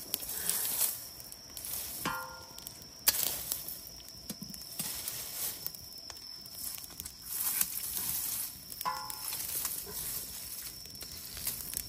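Bundles of dried sesame stalks burning in an open fire under a cast-iron cauldron, crackling and hissing with scattered sharp pops. The loudest pop comes about three seconds in.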